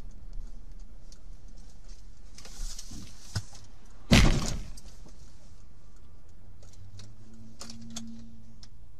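A car collision heard from inside the dashcam car. A short rushing hiss is followed about four seconds in by one loud crash impact that dies away quickly, then scattered clicks and rattles over a steady engine and road drone.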